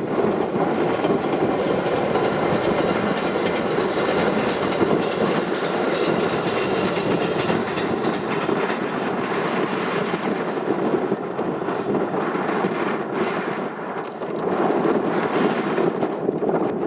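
Ryomo Line electric train running past, its wheels clicking over the rail joints.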